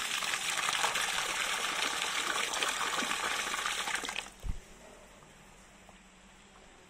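Water pouring into a plastic basin already holding water, splashing as hands rinse fish innards in it. The flow stops suddenly about four seconds in, followed by a single low thump.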